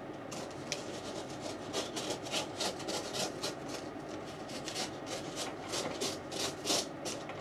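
A blade slitting packing tape along a cardboard box seam: a run of short, irregular scratching and scraping strokes of the cutter and tape against the cardboard.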